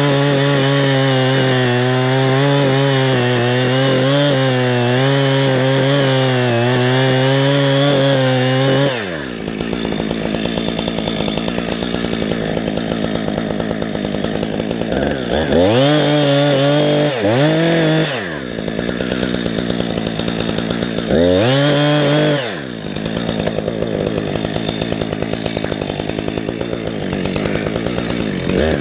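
Gasoline chainsaw engine held at high revs for about the first nine seconds, its pitch wavering a little, then dropping to idle. Two short throttle revs rise and fall in the middle, and another comes at the end.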